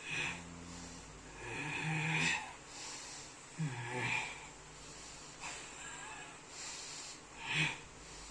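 A person making rasping, snore-like growls and heavy breaths in about five short bursts, typical of someone in a possession trance.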